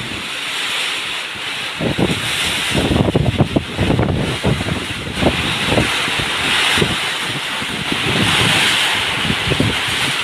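Strong gusting wind buffeting the microphone in irregular low rumbles, over a steady rushing hiss of wind and sea.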